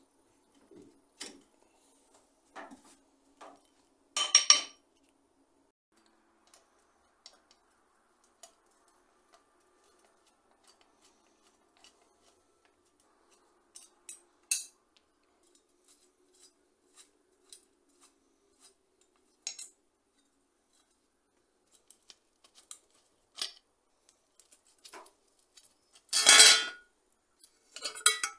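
Metal parts of a Kama folding bicycle being taken apart by hand, with scattered small clicks and ticks of tools and fittings. There is a louder metallic scrape and clatter about four seconds in, and a longer clatter near the end, which is the loudest sound.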